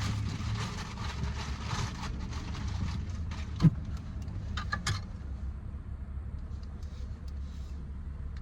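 Rustling and handling noises, with a sharp knock about three and a half seconds in and a few clicks a second later, over a steady low hum.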